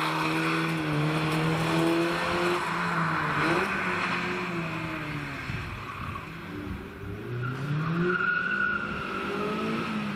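Mazda MX-5's four-cylinder engine driving through a corner: its note falls over the first few seconds as it comes off the throttle, then rises again as it accelerates, about seven to nine seconds in.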